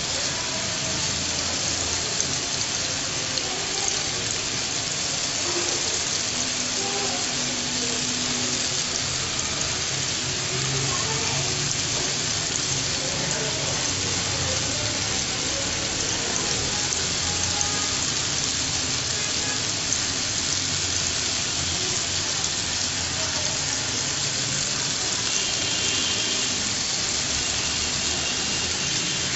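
Marinated chicken skewers sizzling steadily in oil on a hot grill pan, an even frying hiss.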